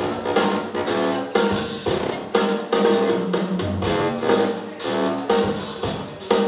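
Hip-hop music played by a DJ over speakers: a steady drum beat with kick and snare under a repeating pitched riff.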